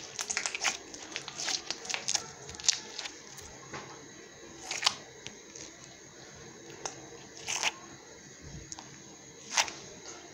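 Crunchy slime worked by hand, giving crackling pops and snaps. A quick run of small crackles comes in the first few seconds, then a single louder pop every two to three seconds.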